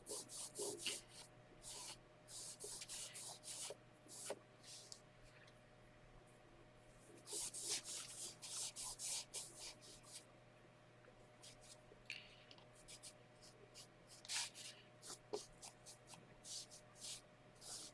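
A cloth rubbing over a waxed painted surface, wiping back dark wax: faint, short scratchy strokes in runs of a few seconds, with pauses between.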